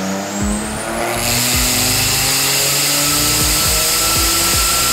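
Turbocharged BMW M30 straight-six in an E30 on a chassis dyno, its pitch climbing steadily as the revs rise under load. A loud rush comes in about a second in and holds, with a thin rising whistle over it. A music beat plays underneath.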